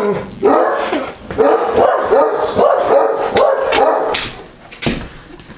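Neapolitan Mastiffs, still worked up after a stranger came to the door, giving a run of long, wavering whining cries. The cries fade out about four seconds in.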